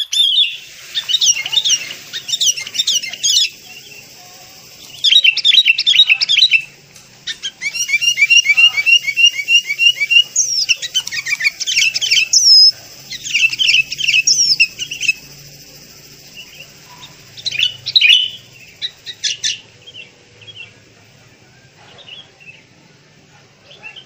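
Sooty-headed bulbul chattering in bursts of rapid high chirps, each burst lasting a few seconds, with a run of evenly spaced repeated notes about eight seconds in; after about twenty seconds only a few scattered faint chirps remain.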